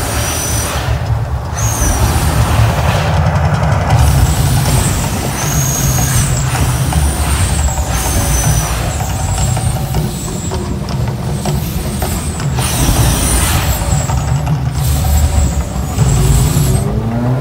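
The Mirage volcano show erupting: a deep, steady rumble under loud hissing rushes from its gas flame jets and water fountains. The hiss cuts out briefly a few times.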